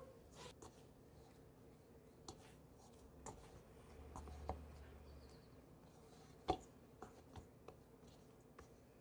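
Faint rubbing and scattered small knocks of hands kneading crumbly sweet-potato dough in a stainless steel bowl, the sharpest knock about six and a half seconds in.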